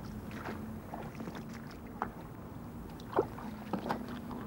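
Outdoor background noise with a faint steady hum, broken by a few short sharp sounds, the loudest about three seconds in.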